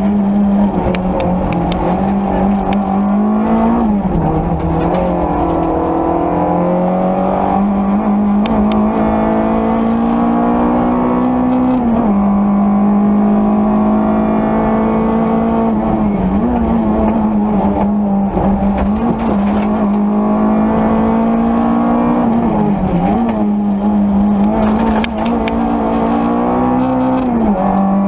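Peugeot 205 Rallye's four-cylinder engine at high revs, heard from inside the cabin, pulling hard with its pitch climbing and then dropping sharply at each gear change, several times over. A few sharp clicks sound over the engine.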